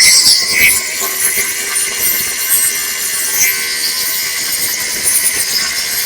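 Ryobi cordless angle grinder cutting into a welded metal fairlead, a steady grinding noise with a faint even hum underneath.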